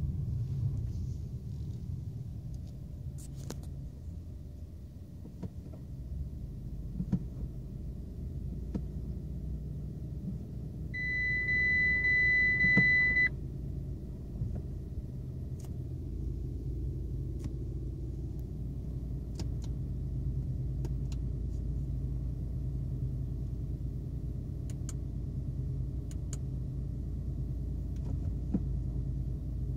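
Fiat Panda 1.2 four-cylinder engine idling steadily, heard from inside the cabin. Near the middle a single steady, high electronic beep sounds for about two seconds, and a few faint clicks sound here and there.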